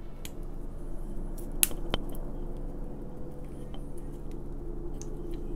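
Small twig fire crackling as thin sticks are laid onto it, with a few sharp snaps and clicks, the loudest about one and a half seconds in, over a steady low hum.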